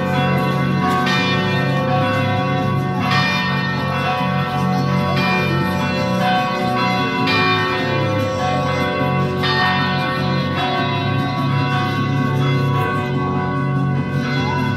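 Carillon bells in the cathedral tower ringing: many overlapping bell tones ring on together, with a heavier strike about every two seconds.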